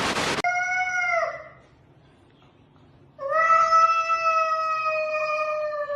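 A cat meowing twice in drawn-out yowls: a call of about a second that drops in pitch at its end, then after a pause a long, steady call of about three seconds. A short burst of hiss-like noise comes right at the start.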